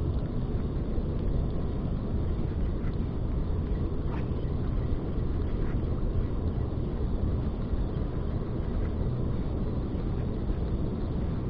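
Steady low rumble of wind buffeting the camera microphone, with a few faint clicks.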